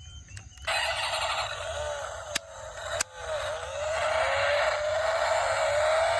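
A toy car's small electric motor starts whirring under a second in and runs on, its pitch slowly rising, with two sharp clicks in the middle.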